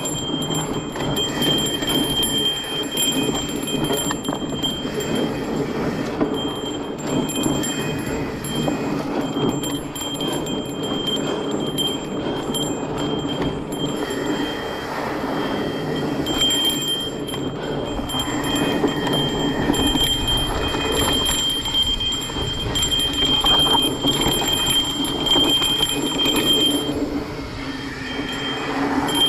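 Mountain bike rolling fast down a dry dirt singletrack: steady rumble and crunch of the knobby tyres on dirt, mixed with a high steady buzz from the rear hub freewheeling while coasting. The buzz comes and goes and drops out near the end.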